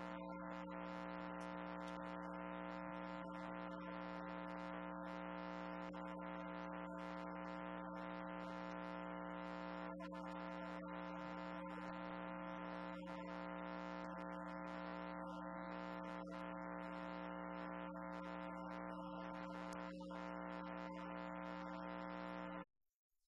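Steady electrical buzz: a low hum with many overtones, unchanging in pitch and level, that cuts off suddenly near the end.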